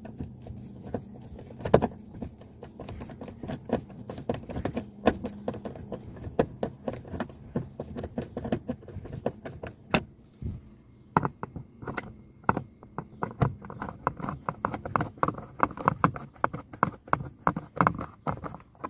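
Screws being driven back into a car's plastic interior door trim, with irregular clicks and knocks of the screwdriver and parts against the panel. In the second half the clicks become a quick run of about three to four a second.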